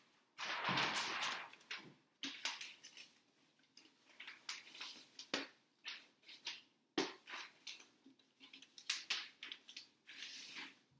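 Large sheets of chart paper on an easel being handled and shifted. The paper rustles and crinkles in a long rush near the start, then in shorter bursts with a few sharp taps.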